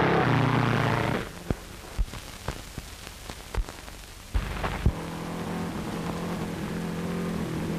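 Race car engine running at speed, cutting off suddenly about a second in, leaving old film-soundtrack crackle with sharp pops. About four and a half seconds in the engine comes back and slowly grows louder as the car approaches.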